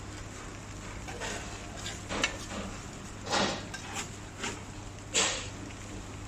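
Cookware and utensils being handled at a pan-fried bun stall: a handful of short clattering knocks and scrapes over a steady low hum, the loudest about three and five seconds in.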